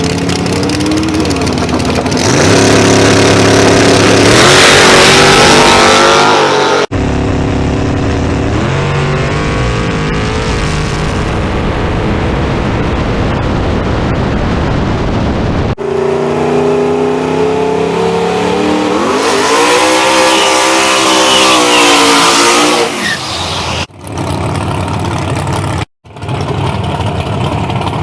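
Drag-race car engines at high revs, revving and accelerating hard with the pitch climbing, in several short clips that cut off abruptly one after another.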